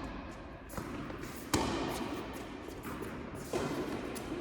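Tennis ball knocks during a rally: racket strikes and ball bounces. There are three or four separate knocks, and the loudest comes about a second and a half in.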